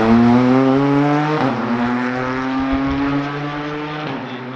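Racing car engine accelerating hard under load, its pitch climbing through the gears with an upshift about a second and a half in and another near the end.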